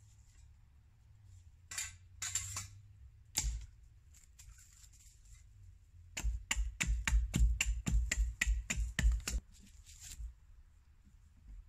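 Knocking of wood on wood as an upright pole is worked into place in a pole-shelter wall: a few single knocks, then past the middle a quick run of about a dozen heavy knocks, roughly four a second, for about three seconds.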